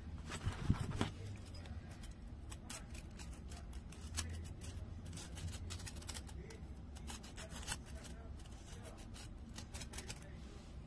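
Small sheet-metal darning loom handled in the fingers: its wire hooks and metal plate give off irregular light metallic clicks and rattles, with a quick cluster of louder clicks near the start.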